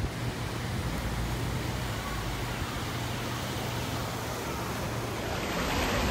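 Steady rush of a fast, shallow river flowing over a stone bed, with a low steady rumble beneath. About five seconds in the water grows louder and brighter, heard close up.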